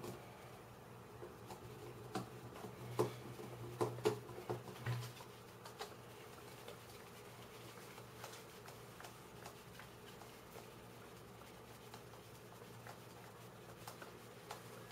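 Small 3D-printed plastic puzzle pieces clicking and tapping as they are handled and pressed together, a cluster of sharp clicks in the first five seconds. After that come faint scattered ticks as a small screwdriver turns the screw holding a square centerpiece to the puzzle core.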